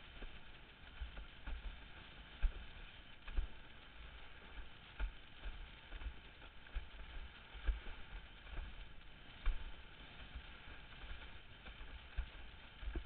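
Mike's Lab L8 Formula windsurf board planing over chop, its hull knocking and slapping on the waves in irregular thuds, a few a second, over a steady rush of water.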